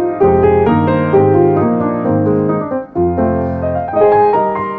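Background piano music, with a short break about three seconds in.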